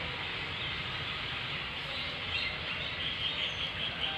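Faint, short chirps from a pet rose-ringed parakeet over steady background noise, the chirps coming in the second half.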